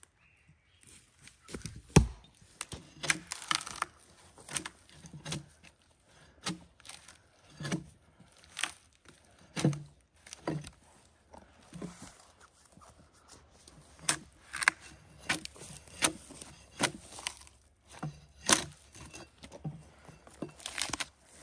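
A heavy wooden thud about two seconds in as the log is rolled over, then a run of sharp knocks and scrapes on wood, about one a second.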